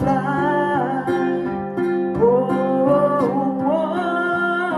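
Song with acoustic guitar accompaniment. A singer holds the word "fly", then sings a rising, sliding "Oh" over steady guitar chords.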